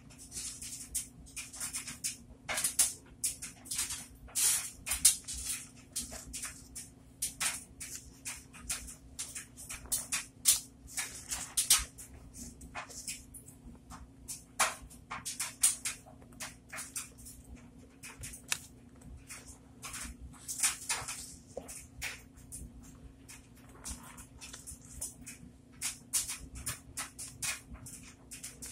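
Thick soap suds being squeezed and squished by hand in a bowl: irregular wet squelches and fizzy foam crackles in quick clusters, with short pauses, over a faint steady hum.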